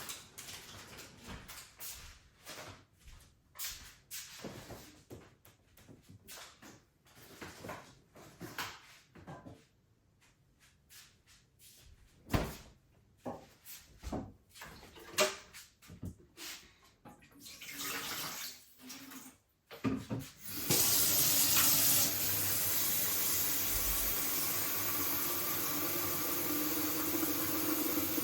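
Light clicks and knocks of things being handled, then about twenty seconds in a kitchen tap is turned on and water runs steadily into a sink.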